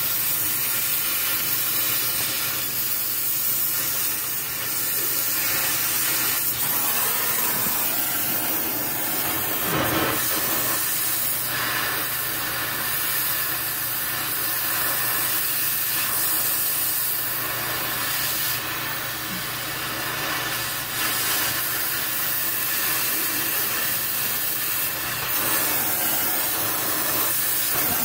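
Oxy-fuel cutting torch hissing steadily as it cuts through a rusted steel exhaust pipe, with a brief knock about ten seconds in.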